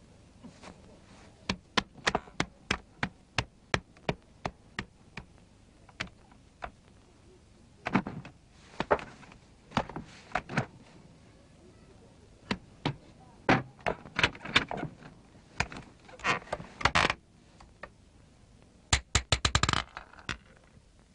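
Sparse cartoon sound effects: sharp clicks and knocks, about three a second at first and then irregular, with a few short scraping or rustling noises and a quick run of clicks near the end.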